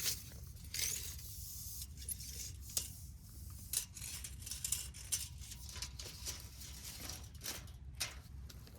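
Irregular gritty scraping and crunching with a few sharp clicks, over a low steady rumble.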